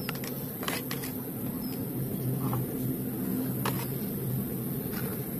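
A low steady hum from an engine running in the background, swelling slightly midway. Over it come a few light clicks and knocks, as when hard plastic toys are picked up and set down.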